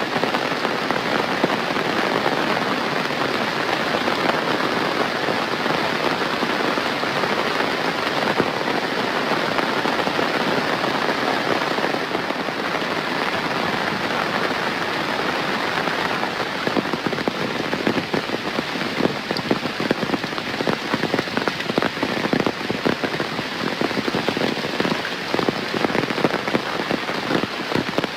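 Steady heavy rain falling and pattering on surfaces, a dense hiss of drops; from about halfway through, individual drop hits stand out more sharply.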